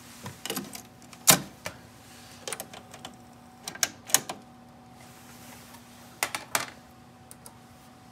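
Mechanical piano-key transport buttons of a Marantz 5220 cassette deck clunking and clicking as they are pressed and released, about a dozen sharp clicks at uneven intervals, the loudest about a second in. A faint steady hum runs under them.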